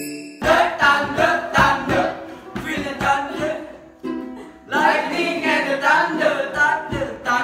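Group of young men singing a song together, with a short break about four seconds in.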